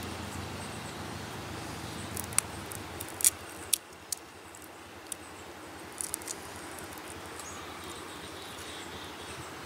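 A handful of short, sharp clicks and snaps over a steady low outdoor rumble, which drops away about four seconds in.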